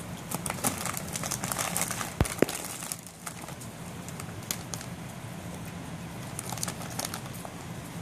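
Rain pattering, with many sharp drop ticks close by. The ticks are thickest in the first three seconds and again near the end, and two louder clicks come a little after two seconds in. A steady low hum runs underneath.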